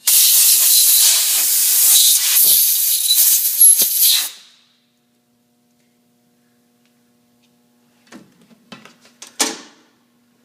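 Compressed air blowing with a loud hiss for about four seconds, then stopping; a few light clicks and knocks near the end.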